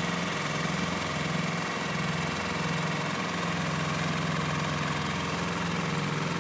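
Engine of heavy paving equipment running steadily at a constant speed.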